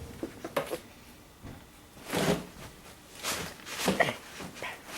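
About five separate short rustles and knocks from someone moving about and handling things in a small room.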